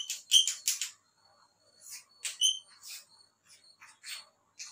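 Chalk on a blackboard: short scratchy writing and drawing strokes in clusters, with a few high squeaks near the start and about two seconds in.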